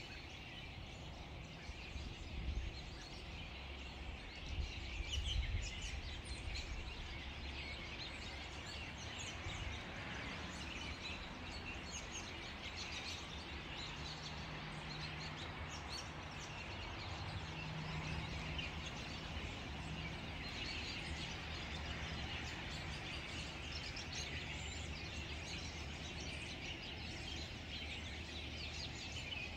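Many small birds chirping and calling at once, a dense, continuous chatter of high chirps from birds all around. Low rumbling bumps sound in the first few seconds.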